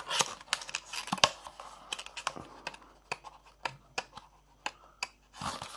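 Irregular clicks and taps of the earphone packaging and box being handled, thinning out about halfway through.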